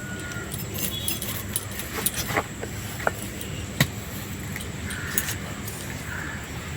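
Irregular sharp clicks and taps of a blade cutting vegetables and fish by hand, with the loudest taps a little past two seconds and nearly four seconds in. A few short calls, likely birds, come in the second half.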